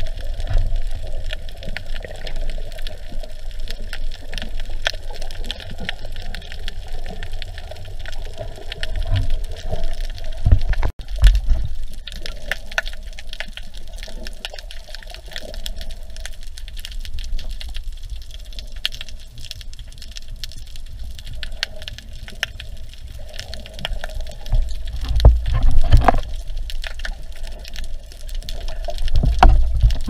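Underwater sound picked up by a camera in a waterproof housing: a muffled water rush and low rumble with a steady crackle of fine clicks. There is an abrupt change about 11 seconds in, and the low rumble surges louder twice near the end.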